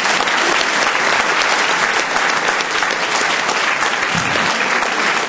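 Audience applauding steadily and loudly at the end of a lecture.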